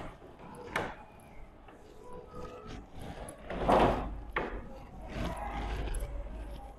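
Whiteboard eraser wiping across a classroom whiteboard in rubbing strokes, with a sharp knock about a second in and a louder thump a little past the middle as it strikes the board.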